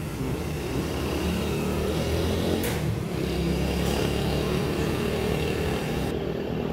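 Motor vehicle engine running steadily nearby, a low continuous rumble, with a few faint clicks over it.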